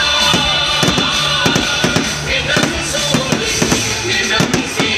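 Music playing, with aerial fireworks shells bursting over it in many irregular bangs and crackles.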